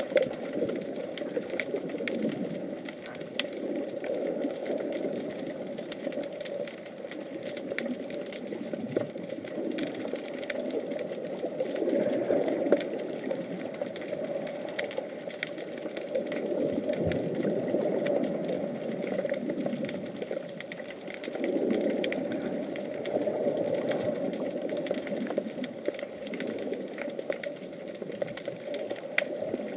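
Underwater sound picked up by an action camera in its waterproof housing: a steady, muffled mechanical whirring hum that swells and fades every few seconds, with faint crackles over it.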